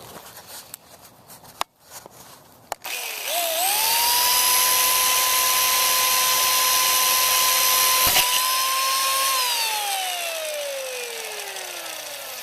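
Chainsaw spun up about three seconds in and running at high speed with a steady high whine. About eight seconds in there is a single sharp hit as a sword blade strikes it. A second or so later its pitch falls steadily as it winds down: the strike knocked the bar and chain off and left the saw inoperable.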